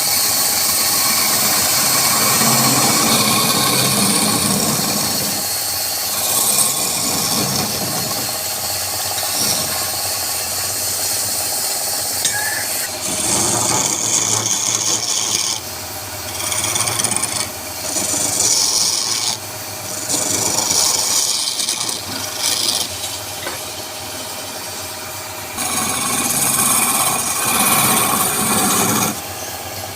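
Woodturning lathe running, with a tool scraping against the spinning wood in a steady hiss. From about halfway on the scraping stops and starts again several times in short passes.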